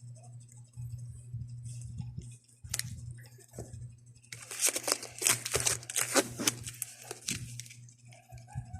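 Packaging being handled and opened: a single click a little under three seconds in, then about three seconds of loud crinkling and tearing, over a steady low hum.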